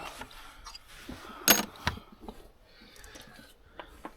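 A few sharp clicks and knocks of hand tools and metal parts being handled during engine timing work. The loudest two come about a second and a half in, a fraction of a second apart.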